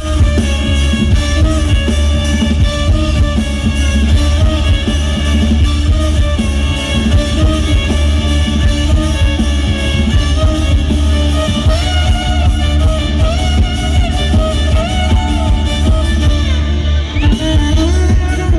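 Loud band music with a heavy, steady bass and held chords; a wavering melody line comes in about twelve seconds in.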